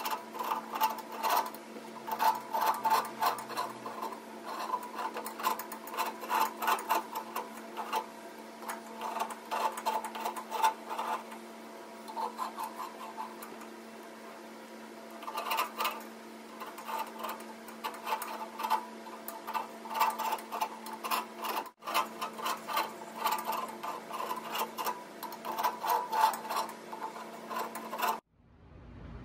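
Small hand file scraping along the spiral grooves of a mahogany barley-twist blank, in bursts of quick back-and-forth strokes with short pauses between them.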